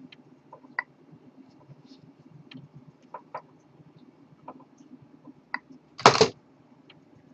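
Faint, scattered clicks of fingertip taps on a tablet touchscreen while paging through settings menus, about a dozen spread irregularly, with one louder brief noise about six seconds in.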